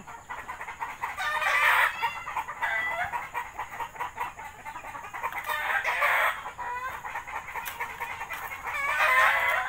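Rooster crowing three times: about a second in, around six seconds in, and again near the end, with shorter clucking calls between.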